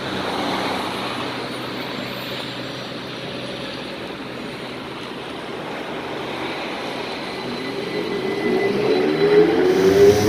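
PTZ-5283 trolleybus pulling away from a stop, its drive whine rising in pitch over the last couple of seconds, over steady traffic noise.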